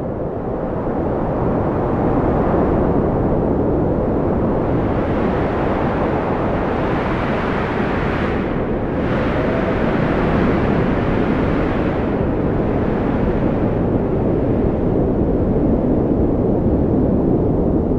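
Strong wind blowing steadily: a deep rushing with faint whistling tones that waver up and down, swelling a little about halfway through.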